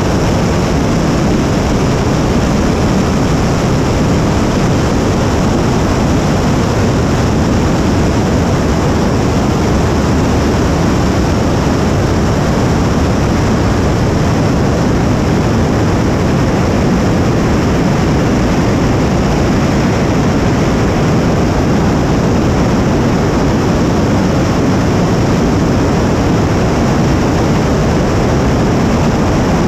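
75-ton-class kerosene and liquid-oxygen rocket engine firing on a static test stand: a steady, loud roar that holds the same level throughout.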